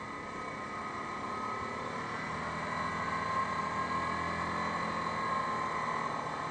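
Yamaha Grizzly 550 ATV's single-cylinder engine running while riding at a steady pace, mixed with wind noise, getting a little louder about halfway through.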